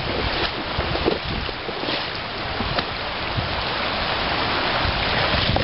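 River water rushing steadily over a shallow, rocky riffle, with wind buffeting the microphone in uneven low gusts.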